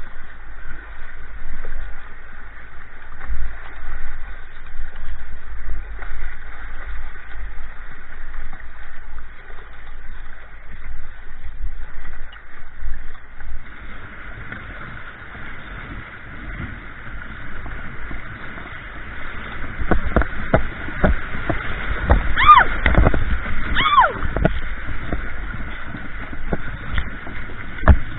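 Fast river water rushing and splashing through a riffle around a kayak, with a low rumble beneath. About three-quarters of the way through, paddle strokes close by bring a cluster of sharp splashes and knocks, the loudest part.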